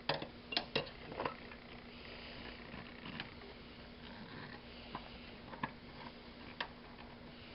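Scattered small metal clicks and taps of a screwdriver working on rusty lamp socket hardware, several close together in the first second and a few more spread out after, over a faint steady hum.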